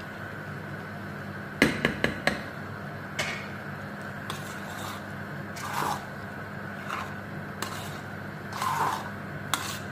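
A spoon knocks several times on the aluminium pot about two seconds in, then scrapes through thick, creamy risoni pasta in short strokes as it is stirred and cooked down on the stove, over a steady low hum.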